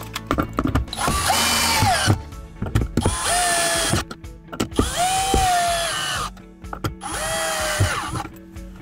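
Milwaukee Fuel cordless drill/driver driving the lid screws of a small plastic enclosure: four short runs of about a second each, the motor whine rising as it spins up and dropping as each screw seats.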